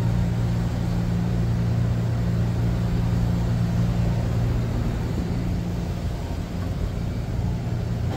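Steady low hum of running machinery with a constant rushing noise beneath it.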